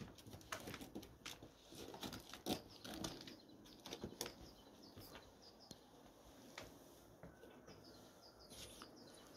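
Faint scattered clicks, knocks and soft rustling: a wooden door being opened and a man stepping through it, his coat rustling as he bends down. The knocks come about every half second at first and thin out after about six seconds.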